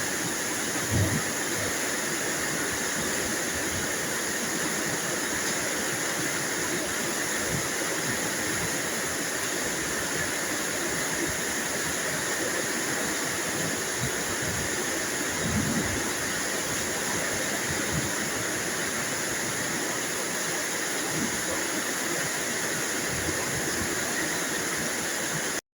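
Steady rain, a dense even hiss, with a few soft low thuds through it. It cuts off suddenly near the end.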